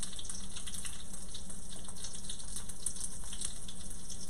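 Stuffed artichokes frying top-down in a hot cast-iron skillet: a steady sizzle with a scatter of fine crackles as the egg-and-breadcrumb stuffing browns and seals.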